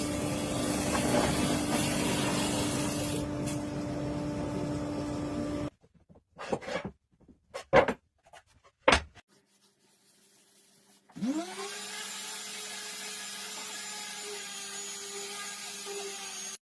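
A woodworking power tool runs loudly and cuts off suddenly about six seconds in, followed by a few sharp knocks of wood being handled. Then another power-tool motor spins up and runs steadily at a lower level, used in cutting and sanding rounded edges on wooden chopping boards.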